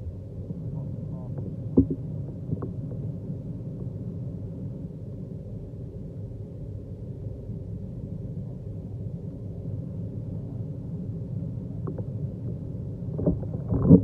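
Muffled, steady low rumble with a faint hum, heard underwater beside a manual pool vacuum head and its suction hose. A sharp knock comes about two seconds in, and a few louder knocks come near the end.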